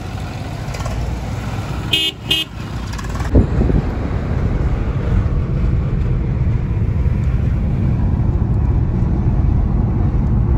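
Street traffic with a vehicle horn tooting twice in quick succession about two seconds in. After a sudden change a second later, a steady rumble of road and engine noise, as heard inside a moving car.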